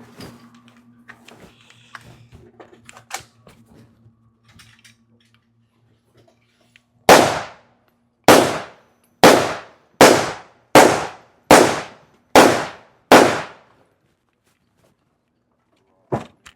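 Eight gunshots fired one after another, a little under a second apart, each with a brief ringing tail; a single quieter shot follows near the end. Before the shots, a few faint clicks and knocks.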